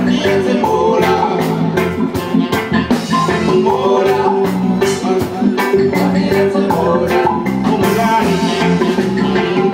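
A live band playing through a PA: a male lead vocalist singing into a handheld microphone over electric guitar and a steady drum beat.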